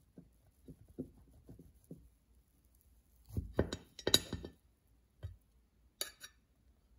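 Serrated knife sawing through a chocolate almond-flour loaf cake in a few soft strokes, then scraping and clinking against the ceramic plate as it cuts through, about three and a half seconds in. A small knock and a short sharp clink on the plate follow near the end.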